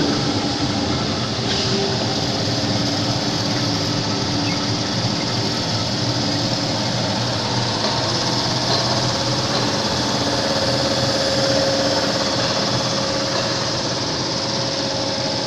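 Aluminium welding wire drawing and layer-winding machines running: a steady mechanical whir with a low hum and a higher tone that grows stronger past the middle.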